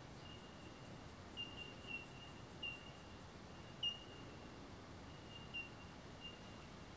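Faint, short high bird chirps repeating every half second to a second over a steady thin high whine, the loudest about four seconds in. A quick string of faint, very high ticks runs through the first three seconds.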